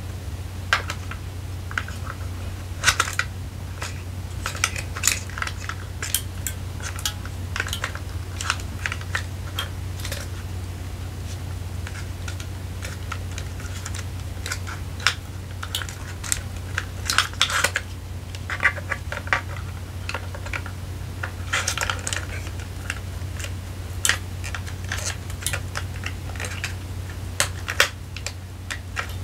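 Irregular light clicks and taps of hands handling camera gear and its packaging, in short clusters, over a steady low hum.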